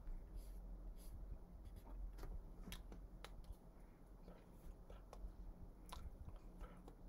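Faint scattered clicks, taps and mouth smacks from a person signing, with hands meeting and lips moving, over a steady low hum.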